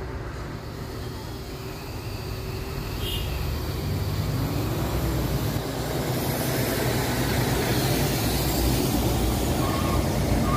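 Diesel engine of a heavily loaded Mitsubishi Fuso truck running at low speed on a hill, its rumble growing steadily louder as it comes closer. A passing car adds road noise around the middle, and short repeated beeps begin near the end.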